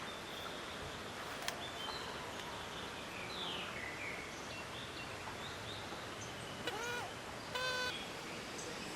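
Forest ambience: wild birds chirping now and then over a steady background rush, with two short, harsher bird calls near the end and a single click about a second and a half in.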